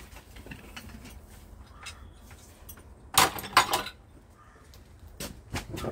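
Sharp metallic clinks and knocks of hand tools and metal parts being handled: a loud cluster a little past the middle and a few more near the end.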